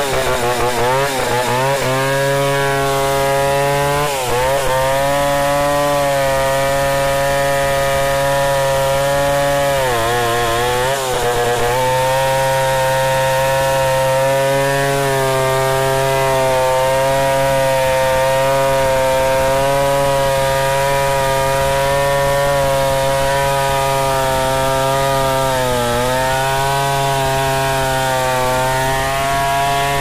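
Stihl 070 two-stroke chainsaw running steadily while ripping lengthwise along a log, the chain cutting into the wood. Its engine note dips briefly three times as the chain loads in the cut, then picks back up.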